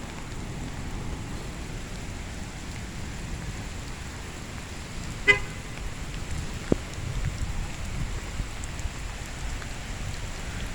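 Steady low rumble of a thunderstorm as rain sets in, with a short sharp blip about five seconds in and a faint click a little later.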